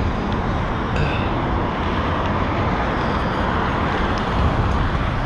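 Steady rushing road noise: wind on the action camera's microphone mixed with road traffic at the intersection.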